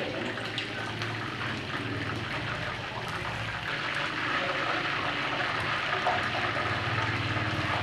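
Chicken wings deep-frying in a wok of hot oil: a steady sizzle and bubbling hiss.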